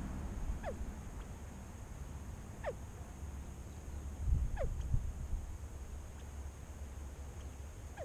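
California quail giving short, falling call notes, four times about two seconds apart, over a low rumble.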